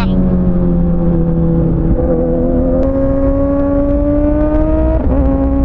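Kawasaki ZX-6R inline-four motorcycle engine under way. Its pitch sags, steps up about two seconds in, climbs steadily as it accelerates, then drops sharply near the end as it shifts up a gear.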